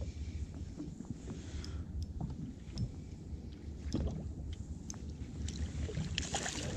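Water against a small boat's hull with a low wind rumble and light scattered ticks, then a splash near the end as a hooked perch thrashes at the surface.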